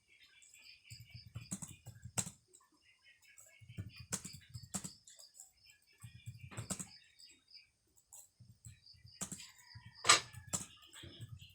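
Typing on a computer keyboard: short bursts of rapid soft keystrokes separated by pauses, with a few keys struck harder as sharp clicks, the loudest one near the end.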